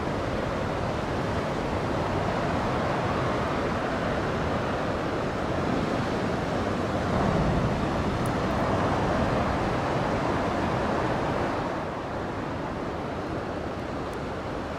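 Surf washing onto a sandy beach, a steady rush of waves that grows louder about halfway through and eases off near the end.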